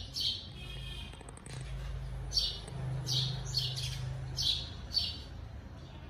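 Small birds chirping: about ten short, sharp, high chirps spaced a fraction of a second apart. A low steady hum sits underneath for a few seconds in the middle.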